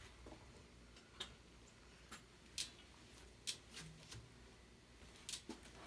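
Faint, scattered clicks and light knocks, about six spread unevenly over several seconds, from a BMX bike being handled and turned around.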